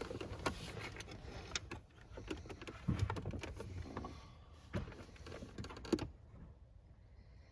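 Irregular clicks, knocks and rustling of wiring and plastic parts being handled and set into place during a car head-unit install, stopping about six seconds in.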